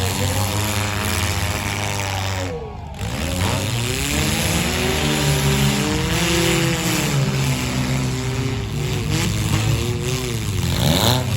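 Several four-cylinder demolition-derby cars' engines revving hard, their pitches repeatedly rising and falling over one another above a steady low engine drone. The sound dips briefly a few seconds in.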